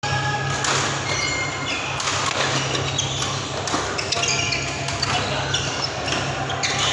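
Badminton doubles rally: sharp racket hits on the shuttlecock every second or two, with short high squeaks of court shoes on the synthetic court mat. The hall echoes, with a low hum underneath.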